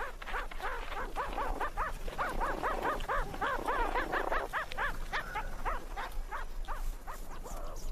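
Meerkats calling: a rapid run of short chirps that rise and fall in pitch, several a second.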